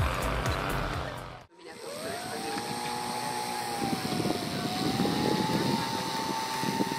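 Background music for the first second or so, then, after a sudden cut, a radio-controlled aerobatic model airplane's motor running on the ground: a steady whine that drifts slightly up and down in pitch.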